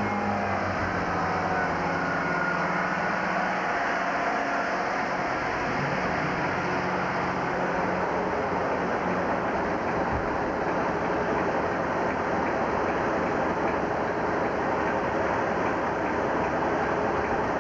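Chiltern Class 165 Turbo diesel multiple unit pulling away and passing close by. Its diesel engines give pitched tones in the first few seconds, which give way to a steady rush of wheel, rail and wind noise as it runs past.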